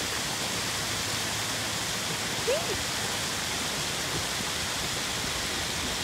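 Steady rushing of water from a partly frozen waterfall.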